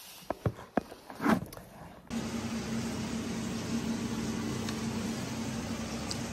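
A few sharp clicks and knocks, then, from about two seconds in, a steady low mechanical hum over even background noise.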